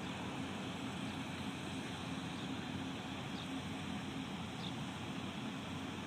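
Mobile crane's diesel engine running steadily at a distance as it hoists a steel roof truss: a low hum over a steady hiss.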